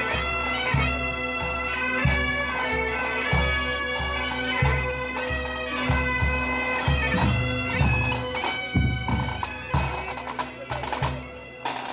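Background music with a steady held drone under a melody and a regular low beat.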